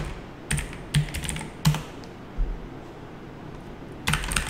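Typing on a computer keyboard: quick runs of keystrokes, a pause of about two seconds, then another fast run near the end.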